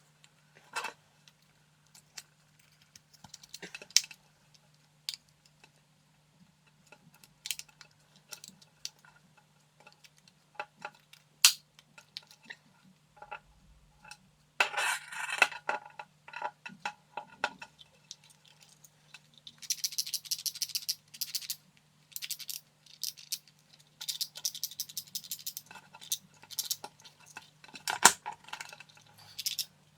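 Small hard plastic and metal plug parts and hand tools being handled on a desk: scattered clicks, taps and a clattery stretch about halfway through, with two short runs of rapid, even clicking later on. A faint steady hum sits underneath.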